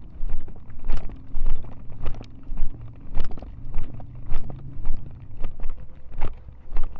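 Footsteps of a person walking at a steady pace on a paved path, about two steps a second, over a steady low rumble.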